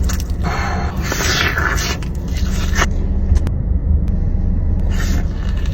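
Crunchy bites and chewing of Korean-style fried chicken, in bursts of crackly noise with a few sharp clicks, over a steady low rumble.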